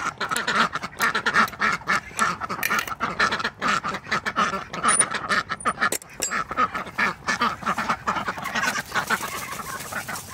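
A group of ducks quacking in rapid, overlapping calls, easing off near the end.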